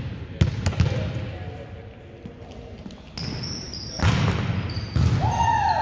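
Indoor volleyball rally: sharp slaps of the ball being hit, with a louder hit about four seconds in and another about a second later, and sneakers squeaking on the court floor, mixed with players' voices.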